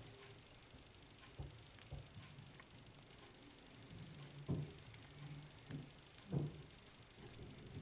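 Faint handling noise from crocheting: soft rustling and light ticks of cotton-linen yarn and a crochet hook worked by hand. A couple of louder soft thumps come about four and a half and six and a half seconds in.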